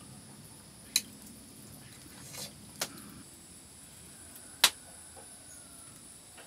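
Eating rice and fish curry by hand from a steel plate: a few sharp clicks as fingers and bangles strike the metal plate, the loudest a little past halfway, over a faint steady high-pitched hum.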